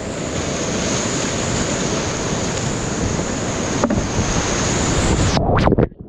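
Whitewater rapids rushing loudly over a kayak, heard close on a helmet camera's microphone. About five and a half seconds in the roar cuts off abruptly and turns muffled as the bow and camera plunge into the foam of a drop.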